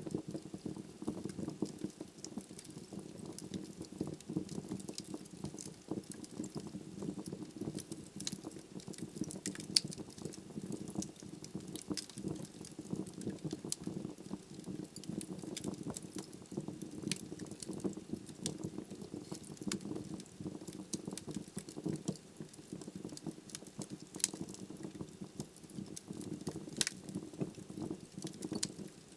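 Logs burning in a fireplace: a steady low rumble under frequent small, irregular crackles and pops, with one sharper pop about ten seconds in.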